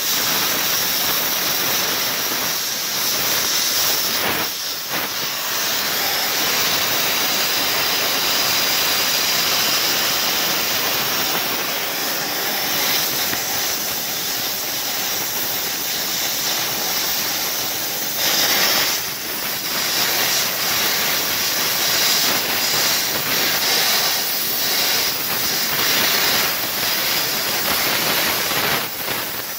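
Oxy-fuel gas welding torch flame hissing steadily while filler rod is melted onto a small steel part.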